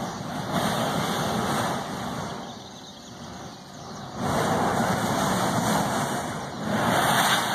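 Volcanic gas blasting out of the ground at a Kilauea eruptive fissure and burning like a blowtorch, a loud rushing hiss. It dies down for a couple of seconds around the middle and surges back about four seconds in.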